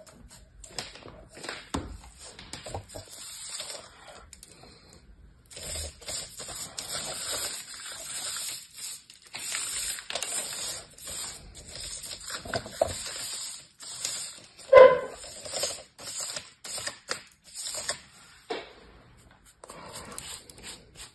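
Kinetic sand being crumbled, pressed and rubbed by hands: a run of soft, crumbly crackles and scratchy scrapes. About two-thirds of the way through, one brief louder pitched sound stands out.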